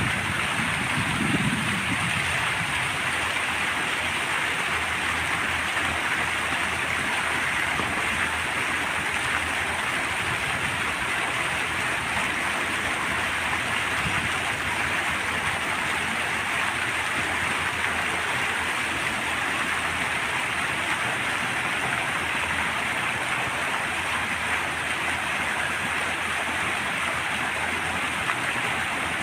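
Fountain water splashing and falling steadily, with a brief low rumble in the first couple of seconds.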